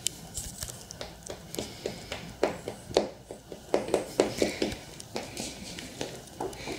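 A small dog rolling and wriggling on a rug over a wooden floor: irregular taps and scrapes of claws and rustling of fur on the rug, with no barking.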